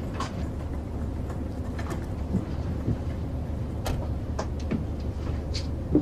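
Steady low drone of an airliner cabin in flight, with a few soft clicks and rustles over it.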